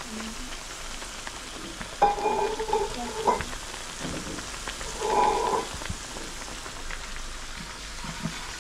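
Batter-coated potatoes deep-frying in hot oil, a steady sizzle. Two short pitched sounds rise above it, one about two seconds in and one about five seconds in.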